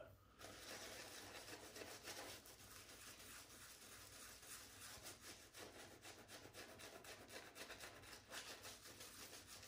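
Faint, quick swishing and rubbing of a shaving brush working lather over the face.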